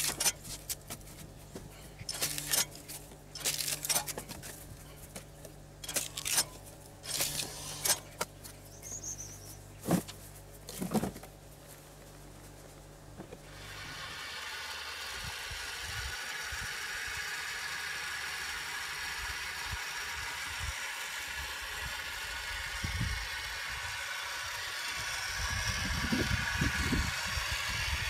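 Split firewood pieces knocking and clattering as they are tossed into a plastic wheelbarrow, over a low steady hum. About fourteen seconds in, a steady machine whir takes over: the pressure washer that powers the water-hydraulic wood splitter, running.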